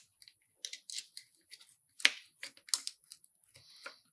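Light scattered clicks and crinkles of a thin sheet of orange lighting gel being handled and pressed into a clear plastic ring-light lens.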